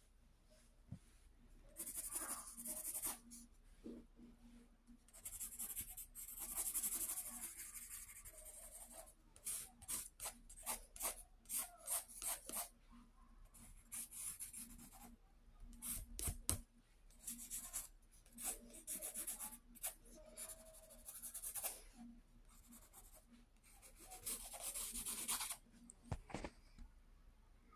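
Graphite pencil scratching on sketchbook paper. Longer shading passes alternate with runs of quick, short hatching strokes, several a second.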